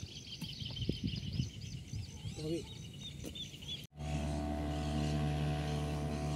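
Riverbank ambience with repeated high chirps of birds and insects. About four seconds in, it cuts abruptly to a steady, louder low hum with several even tones.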